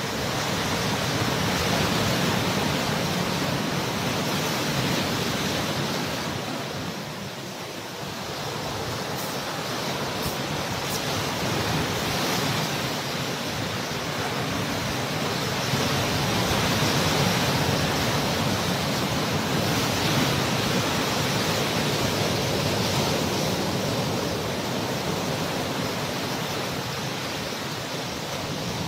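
Steady rushing noise, like flowing water or surf, that gently swells and eases without any rhythm or tone.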